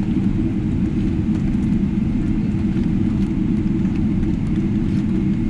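Steady low rumble inside the cabin of a Boeing 777-300ER taxiing after landing, its GE90 engines at idle.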